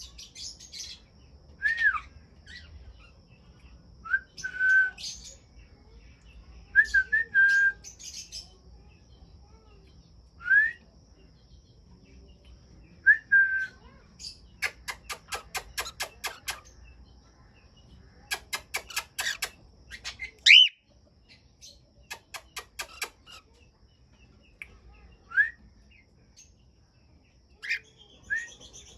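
Aviary birds, cockatiels among them, calling: short whistles that rise and fall, repeated every couple of seconds, and three rapid chattering trains of chirps in the middle, all over a faint steady high whine.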